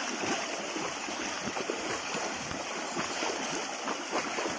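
Bullocks wading through a shallow stream, their hooves churning the water in a steady run of small splashes over the flow.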